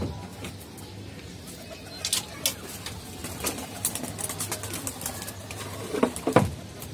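Domestic pigeons in a rooftop loft, cooing, with many scattered short sharp clicks and taps; the loudest sound is a low one about six seconds in.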